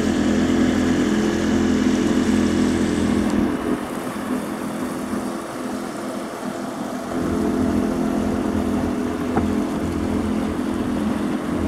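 Small outboard motor running steadily as it pushes a small boat along at a slow cruise, with water rushing past the hull. The engine note dips for a few seconds in the middle, then comes back up.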